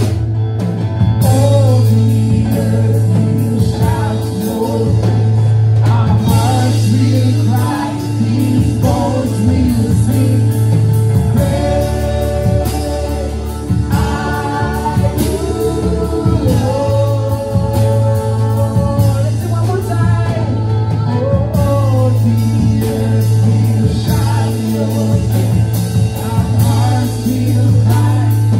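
Live church worship band playing, with a singer's voice rising and falling in long held notes over sustained bass and drums.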